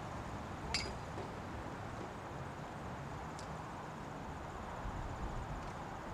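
Arena polo play on dirt: a steady outdoor hush with a sharp click about a second in and a fainter one midway, and the low drum of ponies' hooves on the dirt building near the end.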